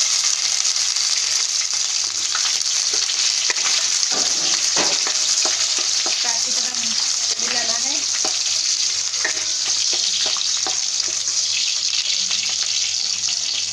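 Sliced onions sizzling loudly in hot oil in a non-stick wok, a steady hiss, with scattered clicks and scrapes from a wooden spatula stirring them.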